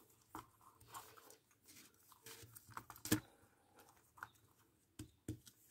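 Faint handling noises of fingers working thin wires into a plastic welding-helmet filter unit: small scattered clicks and rustles, with a sharper click about three seconds in.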